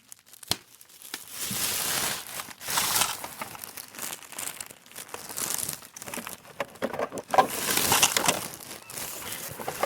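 Rummaging through a pile of things: irregular rustling and crinkling, like plastic and paper being moved about, with a sharp click about half a second in and smaller knocks.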